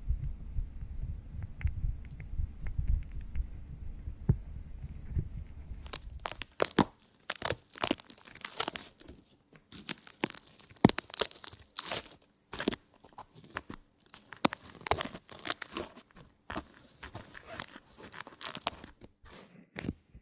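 A low, pulsing throb for about the first six seconds, then close, irregular crackling and crinkling, many sharp rustles in quick clusters with short gaps between them.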